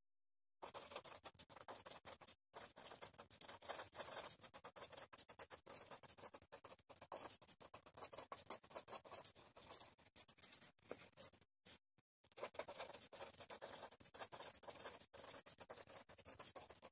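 Marker pen scratching faintly on paper as a line of text is handwritten, in many quick short strokes with a few brief pauses where the pen lifts.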